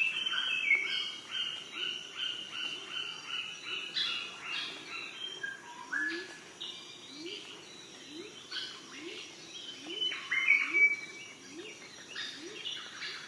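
Tropical rainforest ambience: many birds calling and chirping over one another, with a short low rising call repeated about once a second through the middle.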